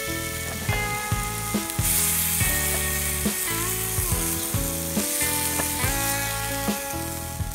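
A slice of meat sizzling in a cast-iron skillet, pressed and moved with a wooden fork, under background music with changing held notes.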